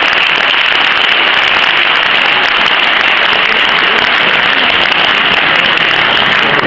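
Audience applauding: loud, steady clapping, with hands clapping close to the microphone.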